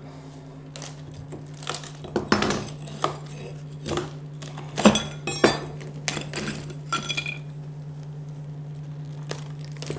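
Metal pry bar scraping and knocking against broken ceramic tile and mortar while a shower curb is being demolished, with irregular clinks of tile pieces, the loudest a little under five seconds in. The knocking dies away for the last couple of seconds, leaving a steady low hum.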